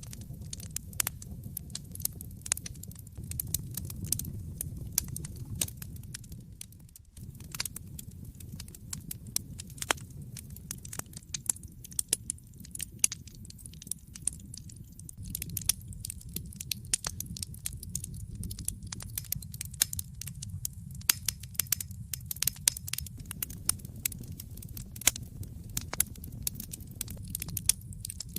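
Wood fire crackling in a fireplace: frequent irregular sharp pops and snaps over a steady low rumble of the burning flames.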